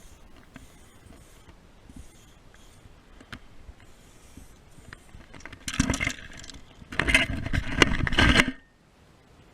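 Two bursts of scraping, rubbing noise, a short one about halfway through and a longer one near the end.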